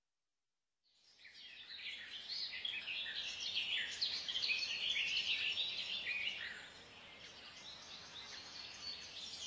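Birds chirping, many short overlapping calls at once, fading in after about a second of silence and thinning out over the last few seconds.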